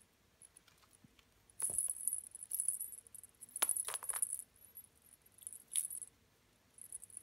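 Small jingle bell on a cat teaser wand jingling in several irregular bursts as kittens bat and bite at it, loudest about halfway through.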